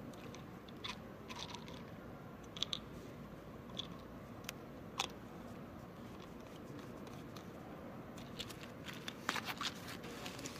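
Gloved hands handling a small glass jar and its lid: scattered sharp clicks and scrapes, then a quick cluster of louder clicks near the end, over a steady low hum.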